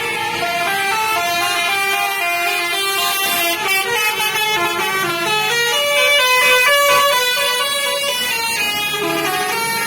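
Telolet horns on tour buses: multi-trumpet musical air horns playing quick melodies, the pitch stepping from note to note without a break.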